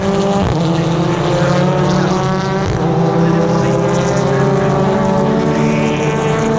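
Several BTCC touring cars' turbocharged four-cylinder engines running at once as the cars race past. Their pitches overlap, some rising and some falling as the drivers brake and accelerate.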